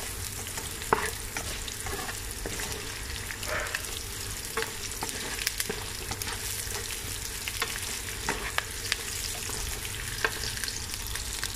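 Pea eggplants sizzling as they are stir-fried in oil in a wok, with a spatula scraping and knocking against the pan at irregular moments, the sharpest knock about a second in.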